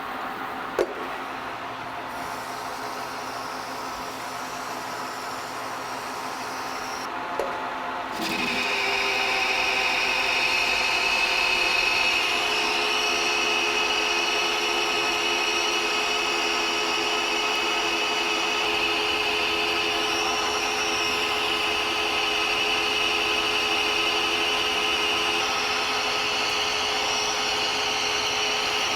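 A metal-cutting machine tool running steadily, with two sharp clicks in the first few seconds; about eight seconds in it gets louder and takes on a steady hiss as a cut into the steel stock begins.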